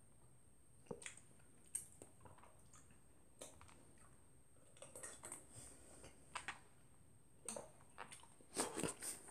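Faint, scattered clicks and soft wet crunches of someone eating cereal in milk: spoon against the bowl and chewing, with a louder cluster near the end.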